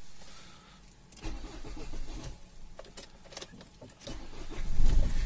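Nissan X-Trail 2.0 dCi diesel engine starting about four seconds in, flaring up briefly and then running steadily, after a few seconds of scattered clattering.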